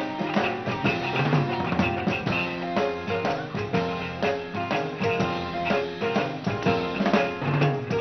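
Live 1960s beat-group music with no singing: a drum kit keeping a steady beat on snare and bass drum under electric guitar, bass guitar and piano.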